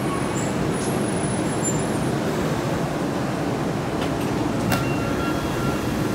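Steady running rumble of a Tokyo Metro Ginza Line subway train in motion. A click and a brief high tone come about five seconds in.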